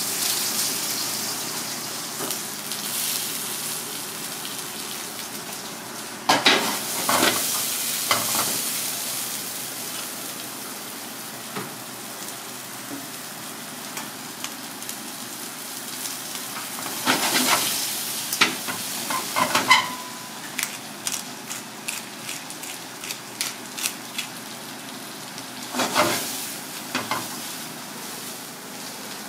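Sliced onion and romanesco sizzling in a hot wok over a gas burner, with louder surges of sizzle several times as they are stirred. Short clicks of the spatula and chopsticks against the wok come through, most often in the second half.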